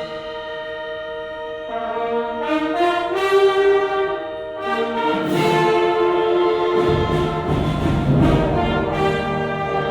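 Orchestral fanfare music with brass holding sustained chords that change every second or two. A low rumble swells under it about seven seconds in.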